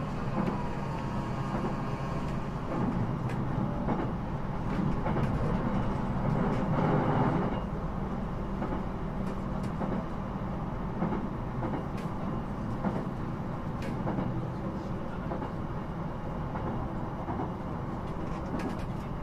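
Inside a Sendai Airport Line electric commuter train car running between stations: a steady rumble of wheels and running gear on the rails. It swells louder for a moment about seven seconds in, with a few faint ticks along the way.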